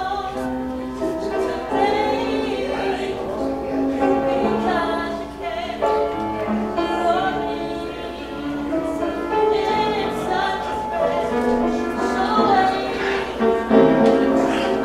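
Gospel singing by a group of voices, with long held notes, carrying on steadily.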